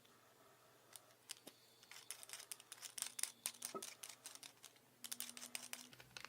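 Clear slime being worked by hand, making quick crackling clicks and pops in bursts, with a short pause about a second before the end.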